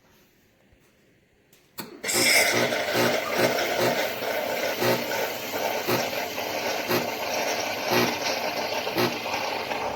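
Chefman espresso machine switching on with a click, then running loudly and steadily with a regular pulsing beat, typical of its pump at work.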